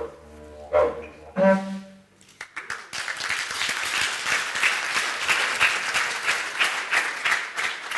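The last notes of music over a low drone end in the first second and a half, and audience applause starts about two and a half seconds in and carries on.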